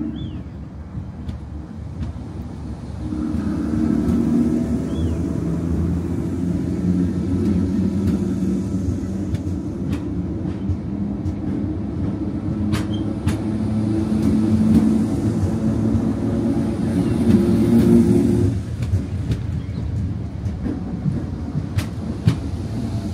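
A DART electric multiple unit pulls out of the platform, its motors humming with shifting tones as it gathers speed, with a few sharp clicks. The sound drops suddenly about three-quarters of the way through.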